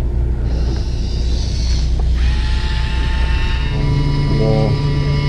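Fishing boat's engine running with a steady low hum, joined about two seconds in by a steady mechanical whine that holds its pitch to the end.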